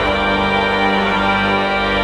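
Pipe organ playing full sustained chords, a new chord struck at the start and held; the instrument is the 1783 François-Henri Clicquot organ, whose pipes and keyboards are original.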